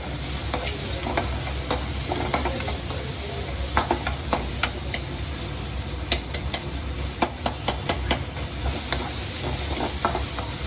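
A utensil stirring noodles in a frying pan, clicking and scraping against the pan in irregular strokes over a steady sizzle.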